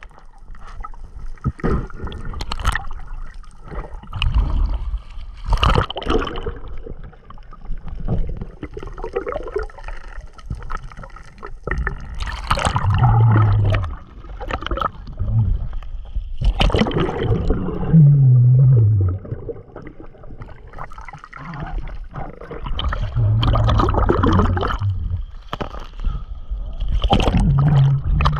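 Seawater sloshing and gurgling around a camera at the surface, with splashes as it dips in and out of the water. A few short low hums come through underneath, one falling in pitch about two thirds of the way in.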